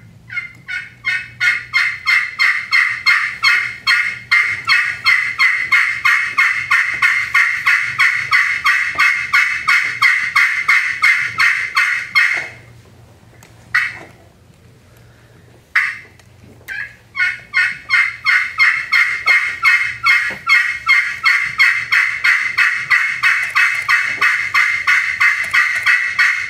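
Friction turkey call played as a hen assembly call: a long run of loud, quick hen yelps, about three a second. About halfway through it breaks off for a few seconds, with a couple of single notes in the gap, then the yelping resumes.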